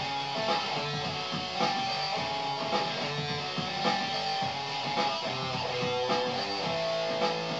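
Stratocaster-style electric guitar being played, a steady run of picked and strummed notes with some held tones.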